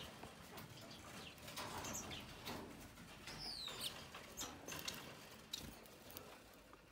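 Faint, short calls and chirps of red-headed finches, including a quick pair of falling whistles about three and a half seconds in, among scattered small clicks.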